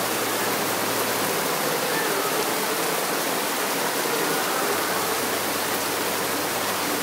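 Torrential rain pouring down in a steady, dense hiss, striking paving and foliage.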